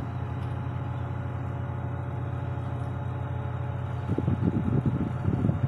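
Mobile crane's diesel engine running steadily while it swings a suspended concrete block. From about four seconds in, wind buffets the microphone in gusts.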